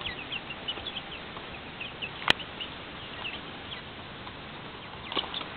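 Young chickens, about five to six weeks old, peeping with many short high cheeps. A single sharp click sounds a little over two seconds in, and a few fainter taps come near the end.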